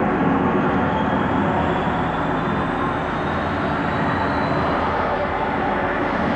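Loud, steady jet aircraft noise, with a faint high whine that slowly rises in pitch.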